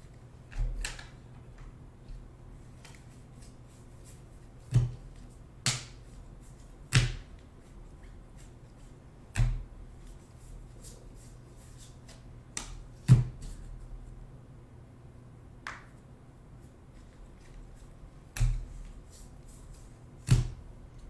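Trading cards being handled at a table: about ten irregular, sharp clicks and snaps as cards are flicked through and set down, over a faint steady low hum.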